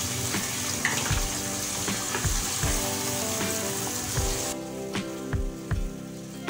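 Chicken curry sizzling in a stainless steel pot as hot water is added to the browned masala and stirred with a wooden spoon; the sizzle cuts off abruptly about four and a half seconds in. Background music with a steady beat plays throughout.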